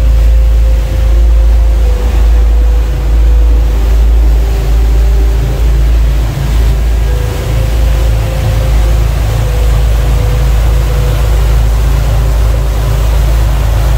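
Taxi boat under way at cruising speed: its engine running steadily under loud rushing water from the wake and wind noise.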